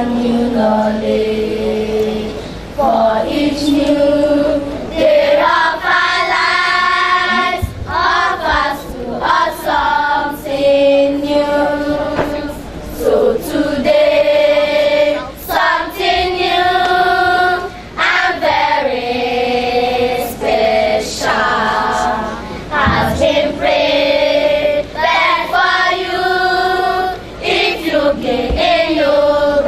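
Group of schoolchildren singing together in sustained sung phrases.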